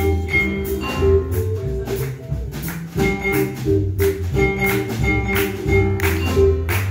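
A live jazz big band playing with saxophones, electric guitar, upright bass, drum kit and a mallet instrument, over a steady beat.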